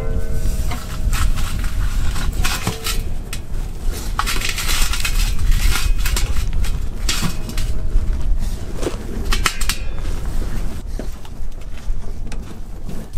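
Wood fire crackling and popping under a cauldron, with short metallic rings from the pot being set on the fire ring near the start, over a steady low rumble.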